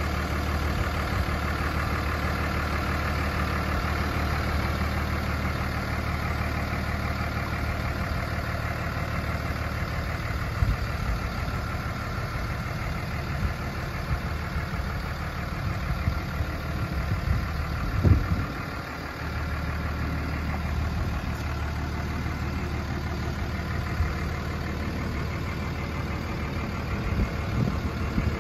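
A 5.9L 24-valve Cummins inline-six turbodiesel in a Dodge Ram 2500 idling steadily with diesel clatter. A brief bump about eighteen seconds in.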